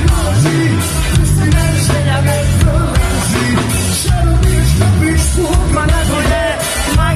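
Live band music, loud and unbroken: electric guitar and bass under a male singer singing through a microphone.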